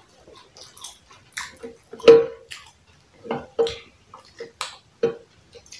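A roast turkey crown being pulled apart by hand: irregular wet, sticky clicks and smacks of meat and skin tearing, the loudest about two seconds in.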